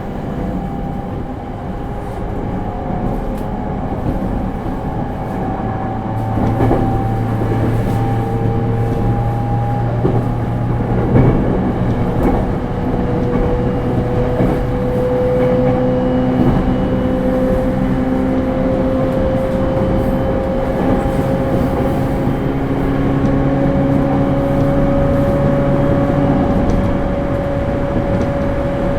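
Running sound inside a JR East E231 series suburban electric train: the Hitachi IGBT inverter and traction motors whine in steady tones that climb slowly in pitch as the train gathers speed, over the rumble of wheels on rail.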